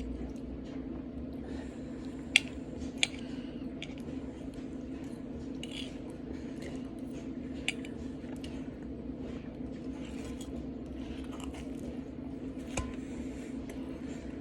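Eating sounds: cutlery clinking sharply against a plate four times, the first two close together, with soft chewing in between, over a steady low hum.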